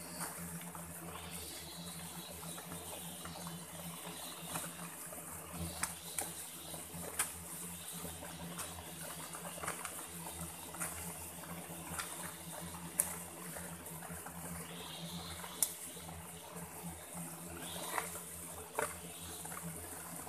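A hand hoe chopping into forest soil and roots in irregular strikes, one every second or two, over a steady low hum.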